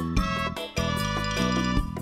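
Instrumental background music: a melody of many sustained notes over a moving bass line, with a light beat.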